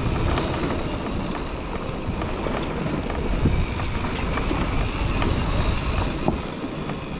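Bajaj Pulsar NS200 single-cylinder motorcycle ridden over a rough dirt track: a steady rumble of engine and road noise, with wind buffeting the camera microphone and scattered knocks from the bumpy surface.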